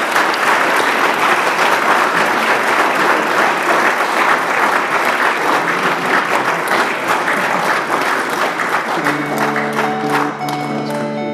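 Audience applauding with dense, steady clapping that thins out near the end. About nine seconds in, plucked guitar music comes in over it.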